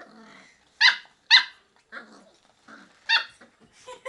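Beagles play-fighting: a short growl, then three sharp, high barks, two close together about a second in and one more about three seconds in.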